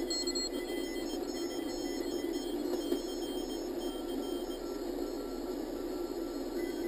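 Morse code (CW) beeps from a Rockmite 40 homebrew 40 m transceiver keyed with an iambic paddle, heard faintly over a steady hiss.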